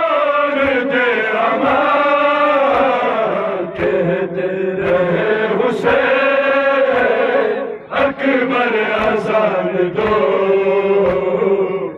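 A noha, the Shia lament for Imam Hussain, chanted by men in long sung lines that rise and fall, carried over a horn loudspeaker. Sharp slaps sound here and there through it, from hands beating chests in matam.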